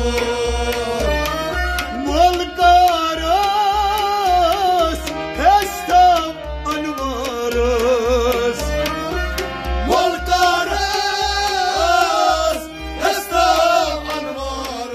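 A man singing a Kashmiri Sufi kalam in long, ornamented melodic lines that waver and slide in pitch, over a steady, evenly repeating drum beat.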